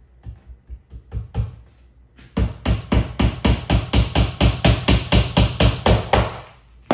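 Claw hammer driving a small nail through the bookcase's thin back panel into its wooden side: a few light taps to start the nail, then a fast, even run of about five strikes a second.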